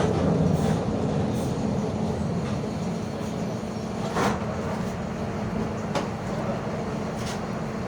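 Mercedes-Benz OF 1721 bus with its OM924LA 4.8-litre four-cylinder diesel, running with a steady rumble and a growling rear differential. A few sharp rattles or knocks from the body come about halfway through and again near the end.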